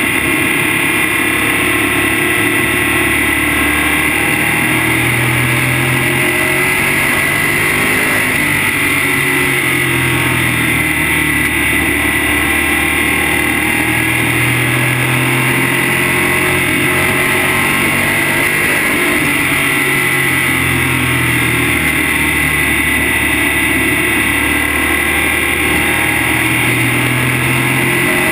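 Modified race car's V8 engine at racing speed, heard from inside the car over road and wind noise. Its pitch climbs and falls every several seconds as it accelerates and lifts around the laps.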